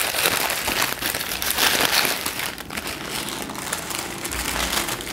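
Paper sandwich wrapper crinkling and rustling as a Subway sandwich is handled and unwrapped by hand, loudest about two seconds in.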